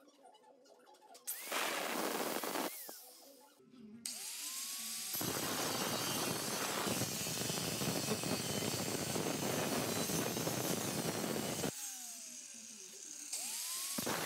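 Handheld angle grinder working steel body metal, the disc throwing sparks. A short pass comes about a second in. The motor then spins up with a rising whine into a long grind of about seven seconds that winds down with a falling whine. It starts grinding again near the end.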